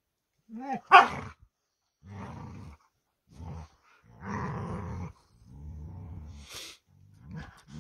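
Two huskies play-fighting, with a high rising yip and a sharp bark-like yelp about a second in, then low growls in four bouts of about half a second to a second each.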